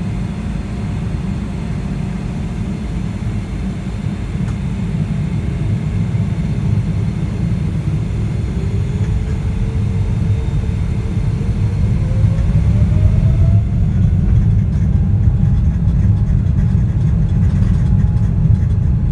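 GE90-115B turbofan of a Boeing 777-300ER heard from inside the cabin: a deep, steady rumble with a whine that climbs in pitch about eight seconds in and levels off a few seconds later, the whole sound growing louder as the engines spool up for take-off.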